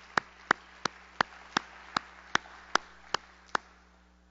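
One person clapping close to a microphone: about ten sharp, evenly paced claps, a little under three a second, that stop shortly before the end. Fainter audience applause behind them fades out.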